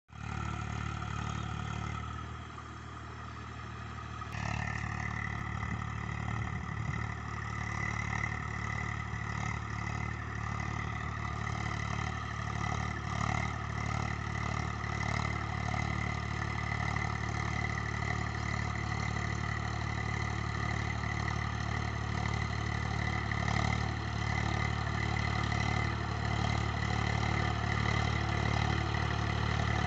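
Diesel tractor engine running under load while pulling a rotavator through dry stubble, getting steadily louder as it comes closer. About four seconds in the sound changes and a steady high whine joins the engine.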